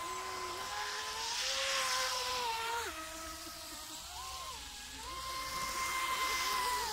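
Two battery-electric RC speedboats running fast on the water: high-pitched motor whines at two different pitches that drop and climb back several times as the throttle is eased and opened, over a hiss of spray.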